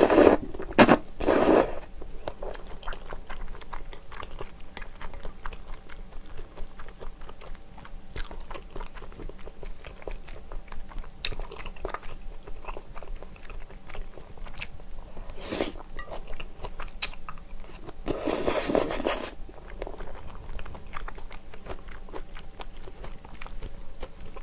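Close-miked eating of spicy tteokbokki: chewy rice cakes and flat glass noodles in thick sauce being slurped and chewed, with many small wet mouth clicks. Louder slurps come in the first two seconds and again for about a second some 18 seconds in.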